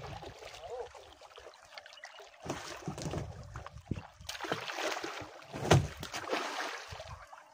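Water splashing and dripping as a fishing net with fish caught in it is hauled by hand over the side of a small boat, with irregular knocks and splashes, the loudest a little under six seconds in.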